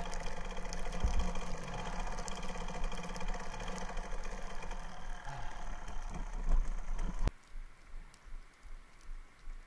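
1999 Kawasaki KDX220R's two-stroke single-cylinder engine running steadily, muffled by the camera's waterproof case; the sound cuts off suddenly about seven seconds in.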